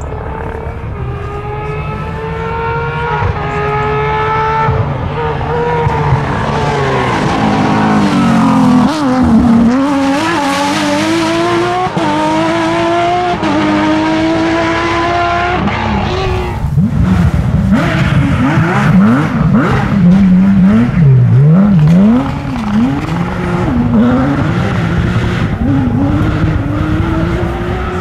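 Porsche 997 GT3 rally cars' flat-six engines at full throttle, very loud. The revs climb through the gears with quick upshifts, and in the later part they rise and fall rapidly as the car brakes, downshifts with throttle blips and accelerates again.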